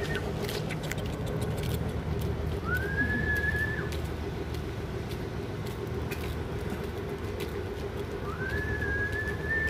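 A steady low hum of traffic or machinery, with a whistle-like call that rises and then holds for about a second. The call comes about two and a half seconds in and again near the end.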